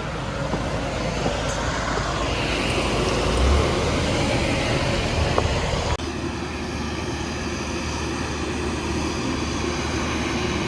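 De Havilland Dash 8 turboprop engines running steadily on the ground, a mix of low hum and engine noise. The sound changes abruptly about six seconds in.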